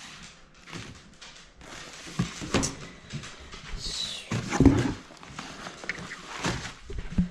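Handling noise from a thick braided kinetic recovery rope being moved about and set down on a stone countertop: rustling with a few dull thumps, the loudest about four and a half seconds in.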